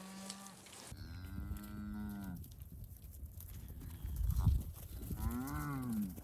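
Murray Grey cattle mooing: two long moos, the second rising and then falling in pitch, with a low rumble loudest between them.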